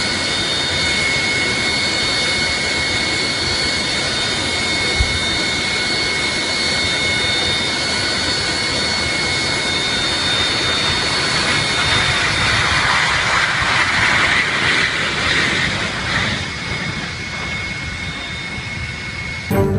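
Jet airliner engines running with a steady high-pitched whine over a rushing roar; about twelve seconds in the roar swells louder for a few seconds, then eases off.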